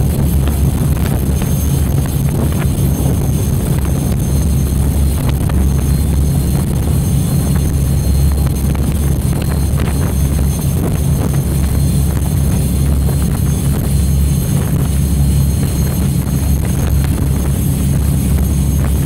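Large unsilenced engines of motor torpedo boats running at high speed on the water: a loud, steady low drone that holds level throughout.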